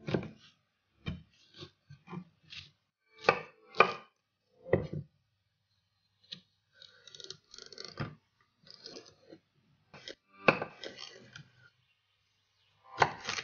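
A chef's knife cuts a Japanese cucumber lengthwise on a wooden cutting board. It starts with a quick run of separate knocks of the blade on the board. Around the middle come softer slicing and scraping sounds as the knife draws through the cucumber, with a few more knocks near the end.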